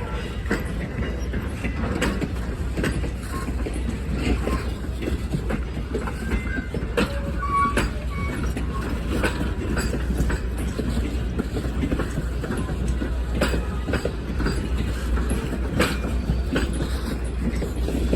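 Passenger train rolling along the track: a steady low rumble with irregular clicks of the wheels over rail joints and a few brief wheel squeals.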